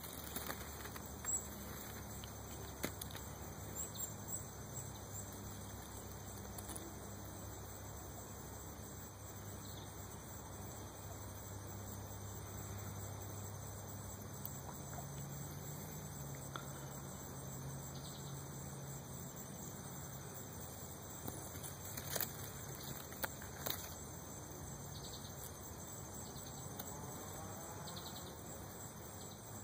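Faint background noise: a low steady hum with a few scattered soft clicks, a small cluster of them about twenty-two seconds in.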